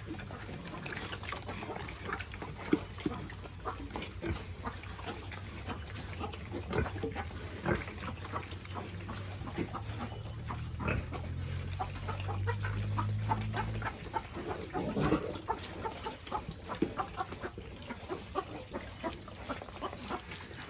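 Pigs feeding at a trough: a dense run of wet chewing and slurping smacks, with an occasional grunt. A low steady hum comes in about a third of the way through and cuts off about two-thirds through.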